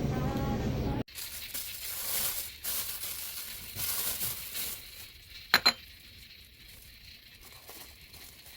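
A steady low rumble cuts off abruptly about a second in, followed by rustling and handling noise and then two quick, sharp clinks of dishware about five and a half seconds in.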